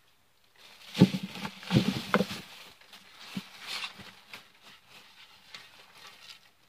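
Shovel scraping loose soil and dirt pattering down into the hole onto a buried mailbox. The heaviest scrapes and thuds come about a second in and again around two seconds in, followed by softer scraping and trickling.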